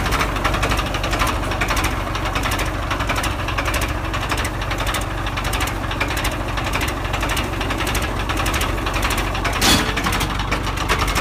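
Farmtrac 60 EPI tractor's diesel engine running close up with a steady, rapid clatter, a second tractor engine running alongside. A brief louder burst of noise comes near the end.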